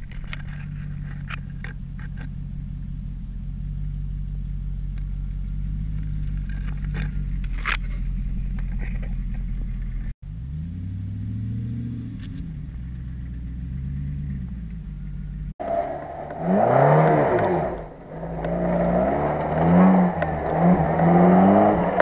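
Off-road 4x4 engines working on steep dirt slopes: first a steady low engine drone, then from about ten seconds in a Land Rover Discovery's engine revving up and down, then from about fifteen seconds a louder, short-wheelbase 4x4 revving hard and repeatedly with rough tyre and brush noise.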